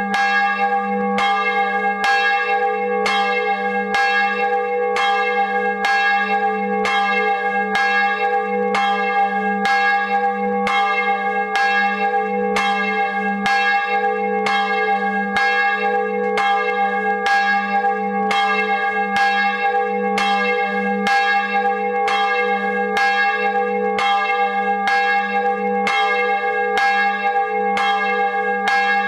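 A 1658 church bell, tuned to G-sharp, swinging and ringing, its clapper striking in a steady, rapid rhythm, each stroke ringing on into the next, heard close up in the belfry.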